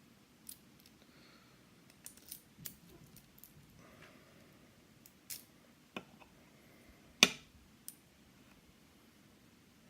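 Scattered small metallic clicks and taps from handling a Yale Superior lock and lock-picking tools, with one sharper, louder click about two-thirds of the way through.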